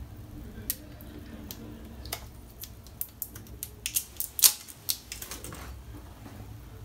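Irregular sharp clicks and taps of a small plastic aftershave splash bottle and its screw cap being handled, bunching up in the middle with one louder click.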